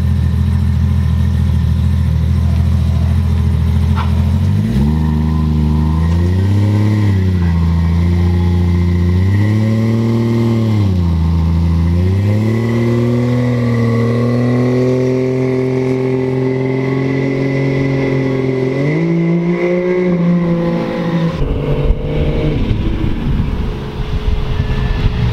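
Turbocharged 1JZ-GTE straight-six in a Holden VB Commodore idling steadily, then revving up and down twice and holding higher revs for several seconds as the car moves off. It ends in a rougher, noisier rumble.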